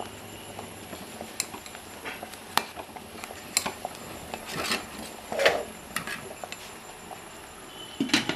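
Steel ladle stirring a steel pot of vegetables cooking in water, clinking against the pot's sides in scattered sharp strikes, with two longer scraping strokes around the middle. A quick cluster of knocks comes near the end.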